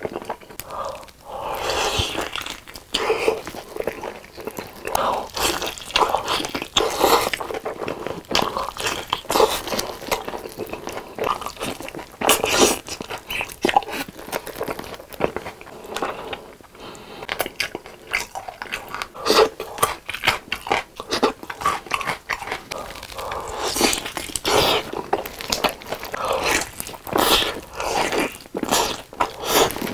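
Close-miked eating of crispy fried chicken drumsticks coated in sticky sweet-spicy sauce: repeated crunchy bites and wet, sticky chewing, with many short crackles.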